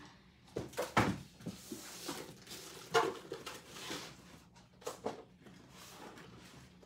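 Rummaging through craft supplies: light rustling of items being handled, with sharp knocks about a second in, around three seconds and near five seconds.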